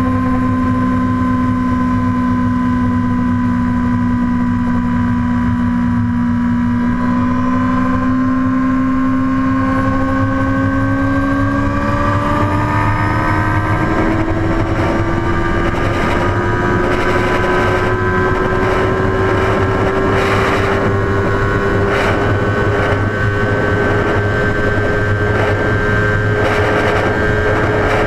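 2009 Honda CBR1000RR's inline-four engine under hard acceleration at very high road speed: its pitch holds steady for several seconds, then climbs steadily as the bike pulls in one gear. Wind rushes past and buffets the microphone, more heavily in the second half.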